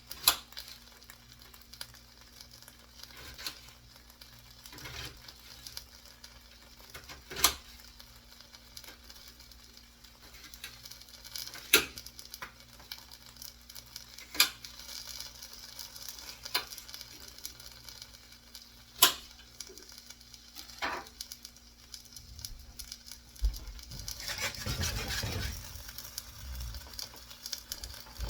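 Food frying in a pan: a steady soft sizzle with a handful of sharp clicks, and a louder, rougher stretch of frying noise near the end.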